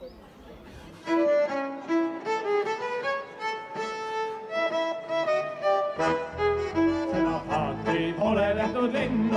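Instrumental background music with a melody of held notes, starting about a second in; a fuller accompaniment with bass joins about six seconds in.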